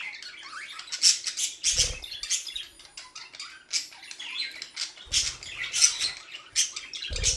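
Budgie chattering in short high squeaky chirps while it scrabbles and flaps its way under an undershirt, the cloth rustling against it. A few low thumps come about 2, 5 and 7 seconds in.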